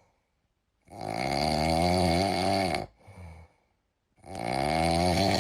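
A looped meme sound clip: a long, low, drawn-out voiced sound with a wavering pitch, each followed by a short soft one, repeating about every three seconds.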